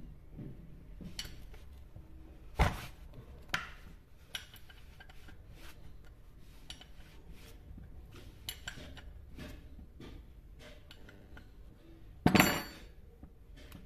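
Metal hand tools clicking and clinking against a chainsaw's engine as it is taken apart, with two louder sharp knocks, one about three seconds in and the loudest near the end.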